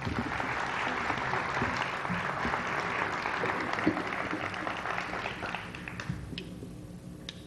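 Audience applauding, thinning out about six seconds in to a few scattered claps.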